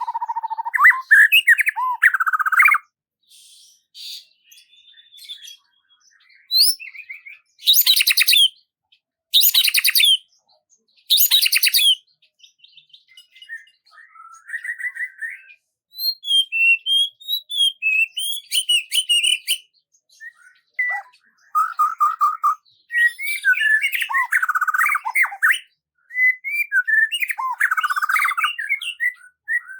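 Songbirds calling and singing in separate phrases with quiet gaps between them. Three loud harsh calls come about a second and a half apart in the first third, followed by quick chirping and warbling phrases.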